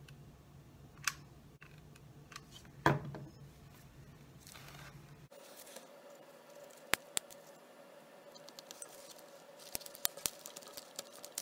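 Scissors snipping thin plastic soda-bottle sheet: a few scattered sharp snips and clicks, with a quick cluster of them near the end.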